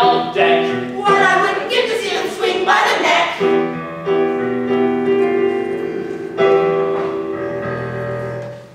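Song from a stage musical: voices sing over a piano accompaniment, then settle about three and a half seconds in on a long held final chord that dies away near the end.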